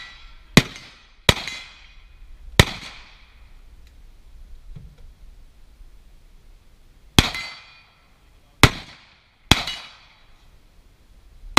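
Carbine gunshots: three shots in the first few seconds, a pause of about four seconds, then three more about a second apart and a last one at the very end, each followed by a short echoing tail.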